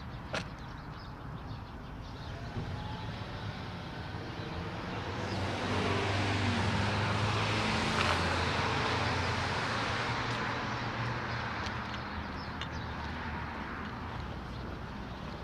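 A road vehicle passes by, its noise building for a few seconds, peaking about halfway through with a falling drone, then fading away over a steady low hum.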